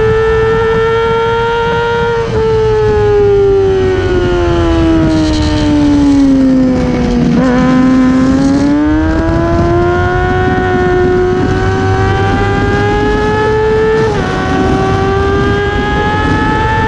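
Racing motorcycle engine running hard on track. Its pitch falls steadily as the bike slows through a corner, bottoming out about seven seconds in. It then climbs again under acceleration, with a quick break in the note at a gear change about fourteen seconds in.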